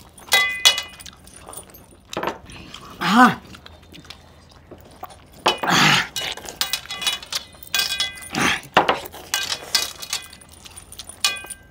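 Loud hand-eating of meat curry: slurping and smacking bursts, a short arching vocal grunt about three seconds in, and several ringing metallic clinks of rings and bracelets against a steel plate.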